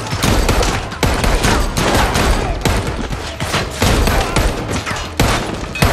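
Heavy gunfire: many shots fired in rapid succession, overlapping one another, with a brief break about five seconds in before the shooting resumes.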